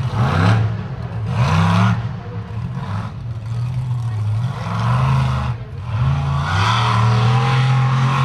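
Bigfoot monster truck's engine revving hard in repeated bursts, the pitch climbing with each stab of throttle and falling back, then holding a steady high rev over the last couple of seconds.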